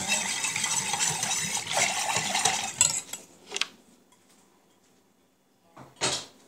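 Wire whisk stirring a thin sauce mixture in a stainless steel pot, scraping and clinking rapidly against the metal for about three seconds, then stopping. A short knock follows near the end.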